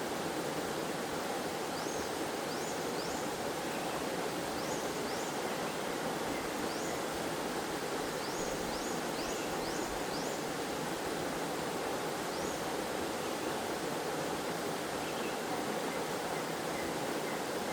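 Waterfall: a steady rush of falling and flowing water. Faint short high chirps come in small runs now and then over the rush.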